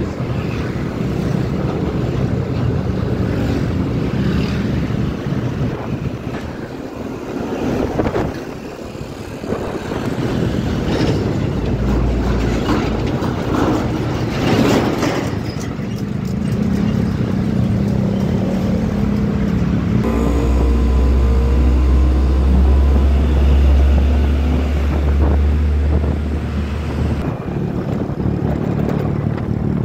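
Motor scooter engine running at road speed in traffic, heard from the rider's camera, with other motorcycles and trucks around it. A deep rumble swells for several seconds about two-thirds of the way in.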